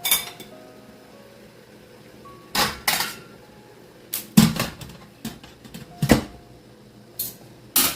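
Cookware being handled at the stove: a series of separate sharp knocks and clatters, about ten, loudest a little past the middle.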